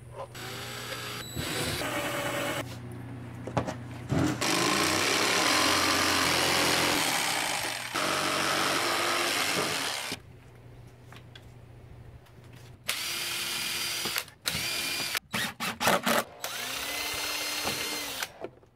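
A corded jigsaw cutting an opening in white plank paneling, loud and steady for several seconds. Later a DeWalt 20V cordless drill drives screws in short trigger bursts and one longer run near the end, its motor whine rising and falling.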